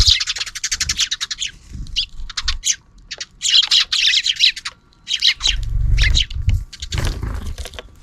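Sparrows chattering: dense runs of rapid, high chirps, strongest in the first second and a half and again from about three and a half to five seconds in. Low thuds and rustling come close to the microphone from about five and a half to seven and a half seconds in.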